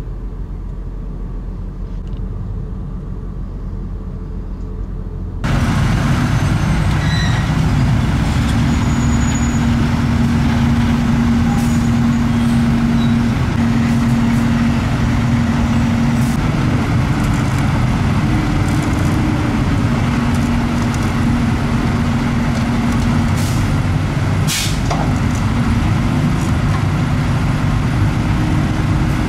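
A heavy truck engine running at a steady speed with road traffic around it, its hum stepping up in pitch now and then. The sound grows suddenly louder about five seconds in, and there is a short sharp hiss, like an air brake, about 24 seconds in.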